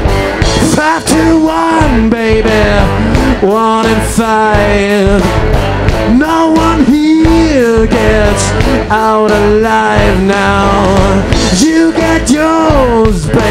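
Live rock band playing, with a lead melody of long notes that bend and waver over steady drums.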